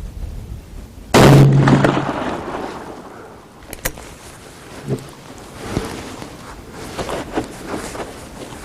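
A single .500 S&W Magnum revolver shot about a second in: a sharp blast with a tail that dies away over about a second. Several light clicks and knocks follow.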